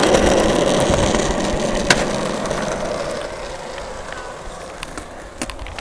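Skateboard wheels rolling on rough asphalt: a steady rumble that slowly fades. There is a sharp click about two seconds in and another near the end.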